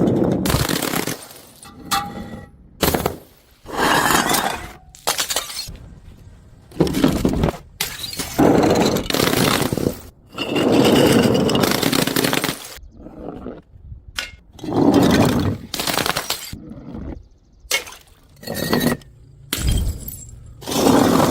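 Glass bottles shattering one after another, a series of about ten separate smashes with tinkling shards and brief ringing, each cut off abruptly.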